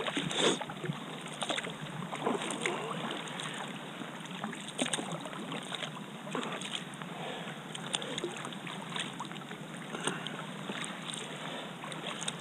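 Double-bladed kayak paddle dipping into calm water, with repeated small splashes and drips off the blades as the kayak is paddled along.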